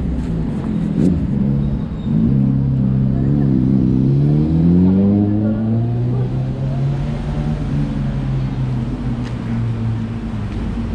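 Street traffic: a motor vehicle's engine accelerating, its pitch rising from about two seconds in to about six seconds, then holding steady.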